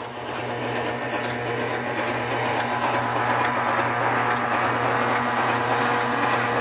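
Electric motor of a homemade rotary well-drilling rig running steadily, turning the drill pipe through a belt drive: a constant hum under a rushing whir that grows a little louder over the first second or two.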